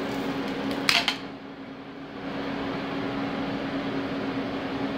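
Steady machine hum of a CNC milling machine running, with a held low drone under an even hiss. About a second in there is a brief sharp clatter, followed by a short dip in the noise before the hum comes back.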